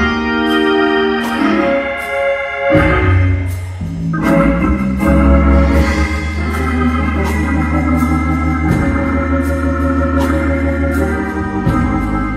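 Organ played gospel-style: full held chords over a bass line that changes every second or two, with sharp hits keeping a steady beat about twice a second.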